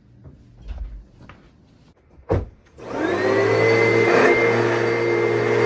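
Upright bag vacuum cleaner switched on about halfway through: its motor spins up with a rising whine, then runs steadily and loudly on carpet. A sharp thump comes just before it starts.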